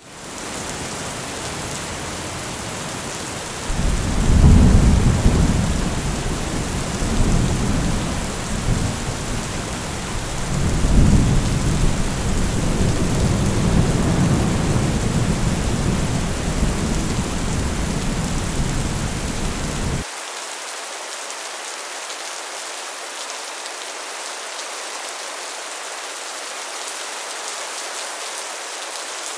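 Heavy rain drumming steadily on a metal roof. Low thunder rumbles in about four seconds in, with a second peak around eleven seconds, and then cuts off suddenly, leaving only the rain.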